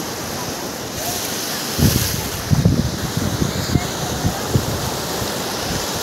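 Sea surf washing up a sandy beach, with wind buffeting the microphone in low gusts from about two seconds in.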